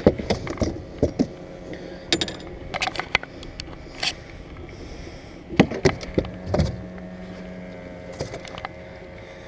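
Scattered knocks and thumps on a bass boat's deck as a freshly landed largemouth bass is handled, the loudest cluster a little past the middle. A low steady hum comes in for a few seconds near the end.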